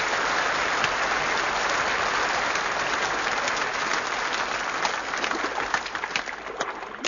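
Audience applauding: a dense, steady wash of clapping that thins out into scattered single claps near the end.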